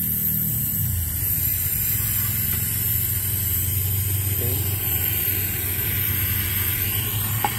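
Panasonic R410A inverter air conditioner's outdoor unit running with a steady low hum that drops in pitch about half a second in, under a faint hiss of gas being let out of the gauge line. A short click near the end.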